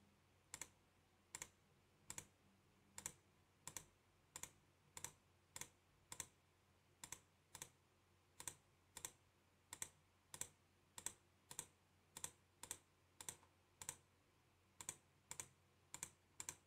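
Faint computer mouse clicks, evenly spaced at about three every two seconds.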